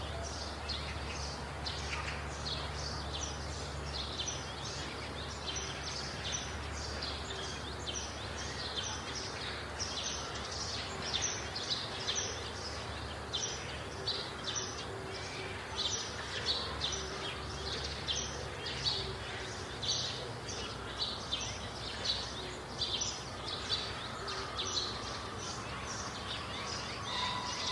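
Birds chirping in a dense chorus of short, high notes repeating several times a second, over a low steady hum.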